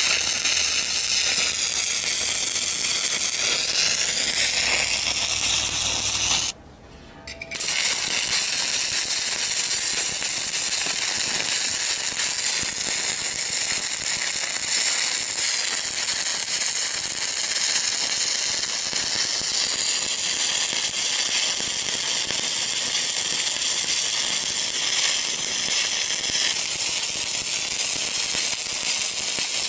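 Stick-welding arc crackling and sizzling steadily while a hot pass is run on a pipe joint. The arc goes out for about a second some six and a half seconds in, then strikes again and burns on.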